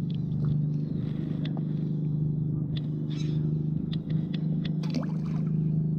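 A steady low mechanical drone, like an engine running, with a few short clicks over it.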